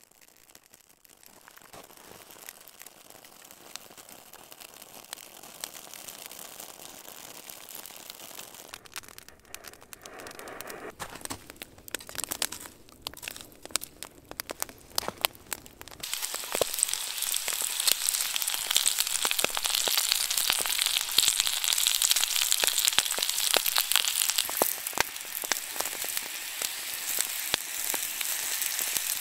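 Fire crackling, growing louder, with several abrupt breaks. About halfway through it gives way to a louder, dense sizzle full of crackles, like food frying over the campfire.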